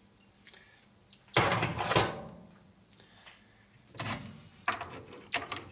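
Metal clunks and knocks from tooling being handled at a stopped metal lathe: one loud clunk about a second and a half in that dies away, then a few softer knocks near the end.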